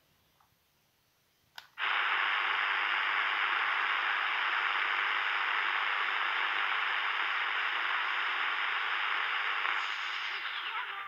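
A click about one and a half seconds in as the Sony ICF-SW10 shortwave receiver is switched on, then steady shortwave static hiss from its small speaker, tuned between stations. The hiss eases slightly near the end.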